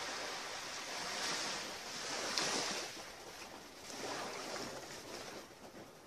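Small waves washing up on the shore, in several surges that swell and ebb, fading near the end.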